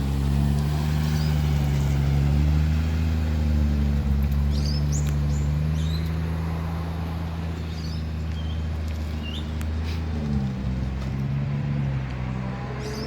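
A 1949 Rover P3's engine running steadily as the car is driven; about ten seconds in the note dips briefly and climbs again. Birds chirp faintly in the middle.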